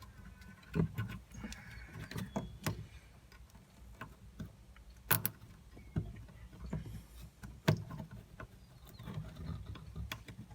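Scattered clicks, taps and rustles of hands working wiring and a plastic zip tie, with two sharper clicks about five and eight seconds in.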